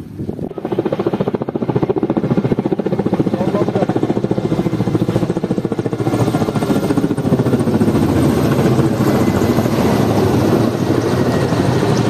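Firefighting helicopter flying close overhead, its rotor beating in rapid, steady pulses. It gets louder about half a second in.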